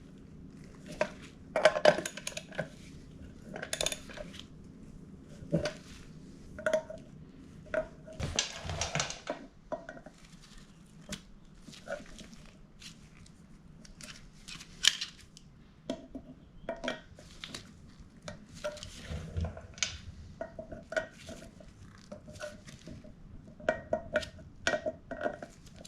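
Metal hand tools clinking and clicking against metal parts, in irregular sharp knocks with a brief rasping stretch about eight seconds in, as fasteners on a dirt bike's rear sprocket are worked and tightened.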